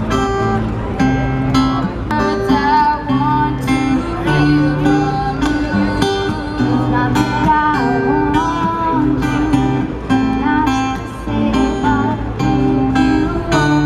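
Live acoustic guitar strummed in a steady rhythm while boys sing along into microphones.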